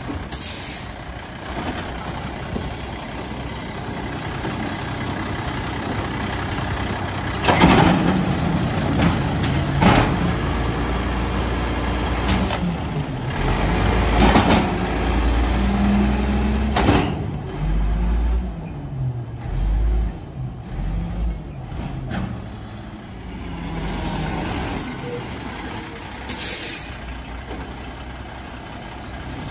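Volvo WXLL garbage truck's diesel engine running while the side-loader's hydraulic packer cycles through the hopper, with several sharp metal clunks and the engine rising under load in the middle. Short air hisses near the start and again near the end.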